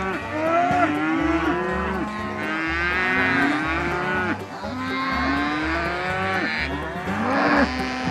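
Many cattle bawling at once, overlapping moos of different pitches.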